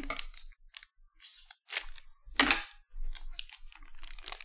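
Foil wrapper of a Panini Select basketball card pack crinkling in the hands as it is handled and torn open: a run of short, irregular crackles, the loudest about two and a half seconds in.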